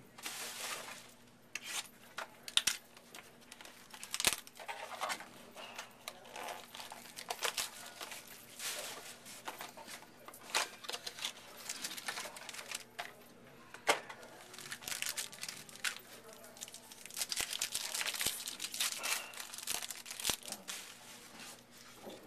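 Topps Finest football card packs being torn open, their wrappers crinkling in irregular bursts, with sharp clicks as the cards are handled.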